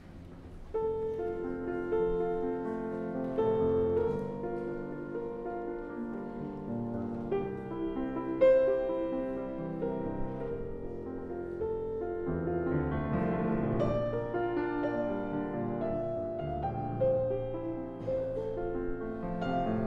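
Grand piano playing a classical passage. The notes begin about a second in and are held so that they overlap.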